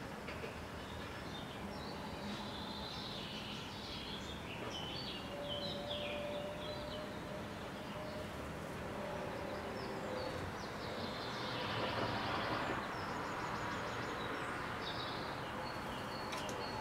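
Small songbirds chirping and trilling repeatedly over a steady hum of distant city traffic, which swells briefly about twelve seconds in.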